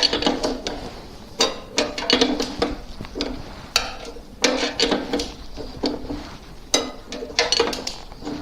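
Steel wrenches clinking and clicking against a motorcycle's rear axle nut and axle as the nut is turned loose, with irregular sharp metal clinks, some ringing briefly.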